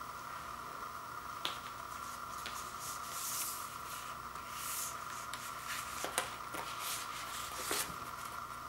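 Hands handling a vinyl LP and its paper sleeve and jacket: two soft sliding swishes as the record comes out, then a few light clicks and taps as it is turned over. A steady faint high hum sits underneath.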